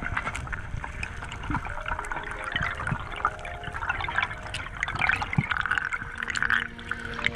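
Underwater sound picked up by a diving camera: a steady wash of water with many scattered sharp clicks and crackles.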